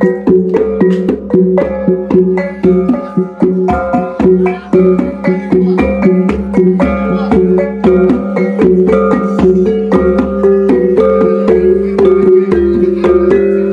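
Iban taboh gong music: quick runs of struck tuned gongs, several strokes a second, over steadily ringing lower gongs and a drum beat.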